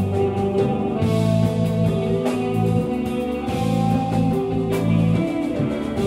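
Live rock band playing an instrumental passage: distorted electric guitars holding long notes over bass guitar and a drum kit, with a few cymbal crashes.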